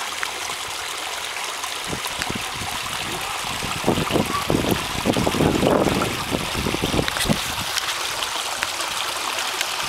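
Water of a backyard pond waterfall splashing and trickling steadily into the pond. The sound swells and grows heavier and lower for a few seconds in the middle.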